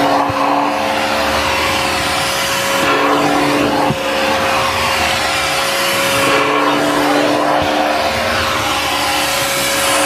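Kenmore 81214 bagged canister vacuum running at full suction with a steady high whine over a rushing hiss, its pet-hair attachment drawn over car floor carpet. A second, lower note comes and goes as the nozzle moves.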